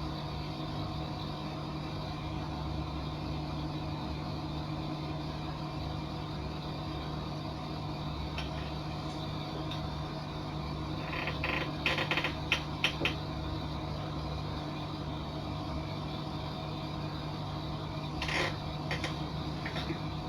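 Sharp clicks and rattles of printer parts being handled and fitted, a cluster of clicks about halfway through and another short one near the end, over a steady low hum.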